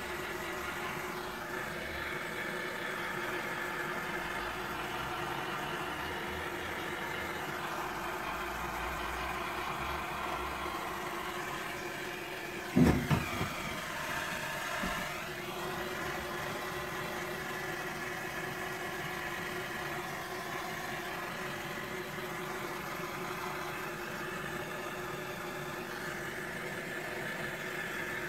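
Small handheld blowtorch running with a steady hiss and hum as its flame is passed over wet acrylic pour paint to bring up cells. A few sharp knocks about halfway through.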